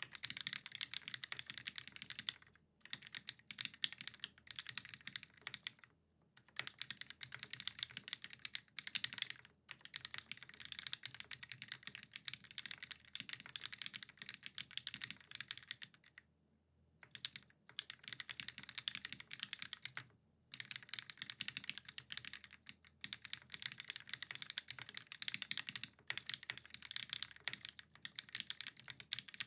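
Continuous fast typing on a custom mechanical keyboard with lubed vintage Cherry MX Black linear switches on an aluminium plate, a dense run of keystroke clacks broken by a few short pauses.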